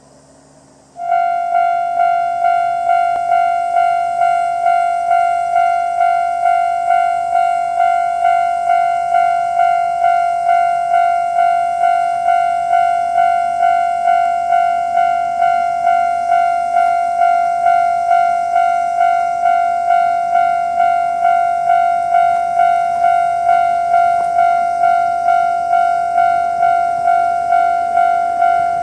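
Japanese railway level crossing warning bell starting suddenly about a second in. It sounds a steady, evenly repeating electronic ding of one fixed pitch, about two strikes a second, each strike fading before the next: the crossing has been activated by an approaching train. It is the crossing's normal alarm sound.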